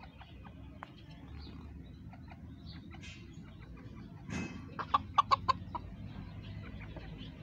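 Chickens clucking: a quick run of about six short, sharp clucks a little under five seconds in, just after a brief louder noise.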